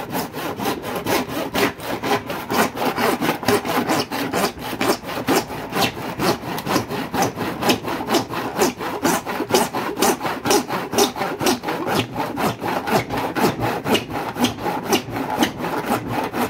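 Handsaw cutting through a washing machine's white plastic outer tub in fast, even back-and-forth strokes, about four or five a second. The tub is pressed together rather than bolted, so it is being sawn open between its two grooves to get the drum out.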